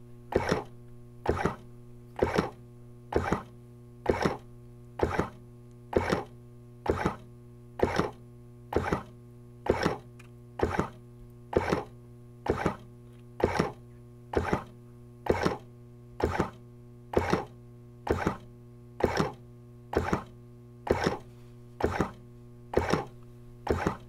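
Hospital equipment: a steady electrical hum with a short, sharp pulse repeating evenly about once a second.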